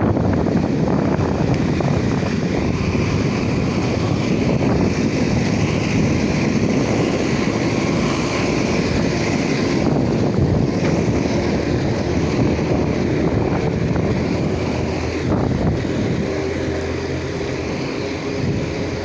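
Steady rush of wind buffeting the microphone of a camera on a moving road bike, mixed with road noise. A faint steady hum joins in near the end.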